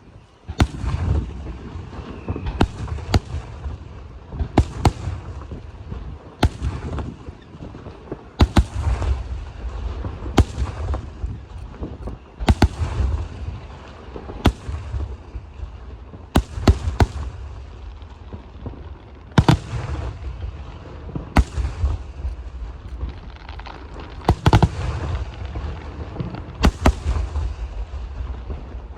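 Aerial firework shells bursting overhead, a sharp bang about every two seconds, often two in quick succession, each trailing off in a low rumble.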